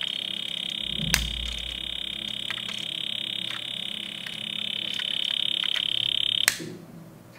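A die-cast Lamborghini Sián toy car's built-in sound unit giving a high, rapidly pulsing electronic buzz. A sharp click comes about a second in, and the buzz cuts off with another click near the end.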